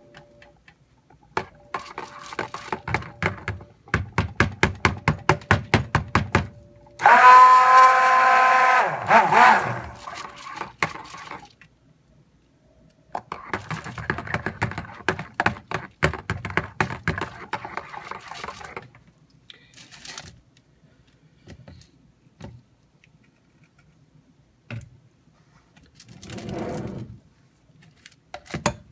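Stick blender mixing cold process soap batter, switched on in several bursts of a few seconds each. Each burst has rapid clicking, and the longest and loudest burst, about seven seconds in, carries a steady motor whine.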